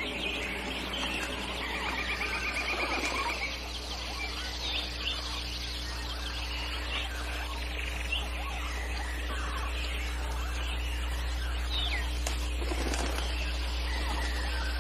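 Jungle ambience: scattered bird chirps and calls, with a fast pulsing trill in the first few seconds, over a steady low hum.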